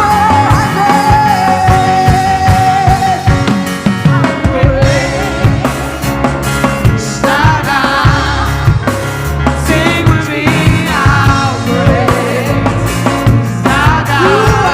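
Live worship band music with singing over a full drum kit and instruments.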